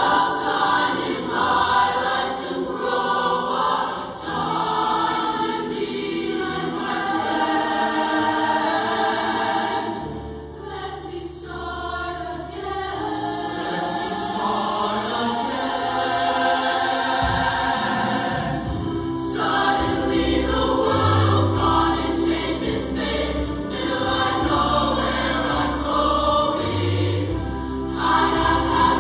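Mixed high-school show choir singing a song in full voice, with deep bass notes coming in a little past halfway.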